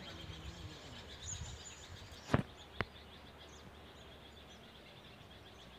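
Quiet outdoor ambience with faint, scattered bird chirps over a steady background hiss. Two sharp clicks about half a second apart come a little over two seconds in, louder than anything else.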